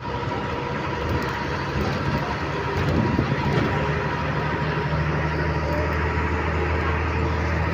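Train running along the track: a steady rumble of rail and running noise, with a faint steady hum above it.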